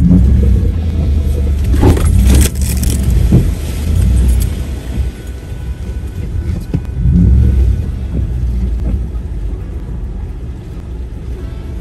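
Off-road vehicle's engine and drivetrain rumbling, heard from inside the cab as it crawls a rough, muddy trail, with rattles and knocks from the jolting cab. About two seconds in comes a brief loud rush of splashing as it drives through a mud puddle.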